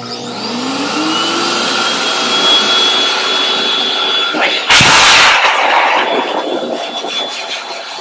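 PetNF force dog dryer's blower motor switched on at its lowest speed without heat, spinning up with a rising whine over a steady rush of air. About five seconds in there is a brief, much louder rush, and the sound gradually dies away near the end.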